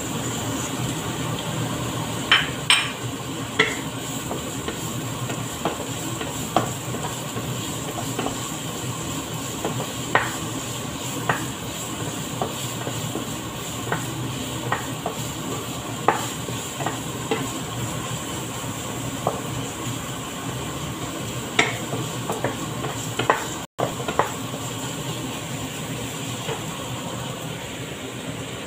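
A wooden spatula stirring chopped onion in a nonstick wok, knocking against the pan at irregular intervals over a steady hiss.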